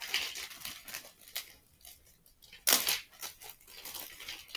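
Irregular rustling and scraping as someone rummages by hand for a toy letter, with one louder rustle about two and a half seconds in.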